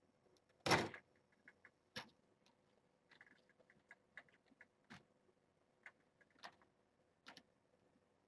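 Kittens moving about in their pen, making faint scattered taps and clicks with one louder rustling thump about a second in.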